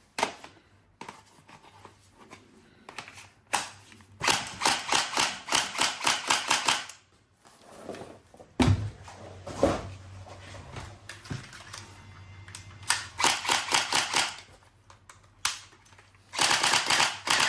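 A toy gun's mechanism clicking in three quick runs of fast, evenly spaced clicks, with a dull thump between the first and second runs.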